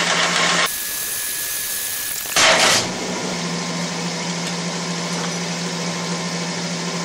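Metal lathe running with a steady motor hum. About a second in, the sound changes to a high hiss with a thin whistle. A short loud rush of noise comes about two and a half seconds in, and then the steady hum returns.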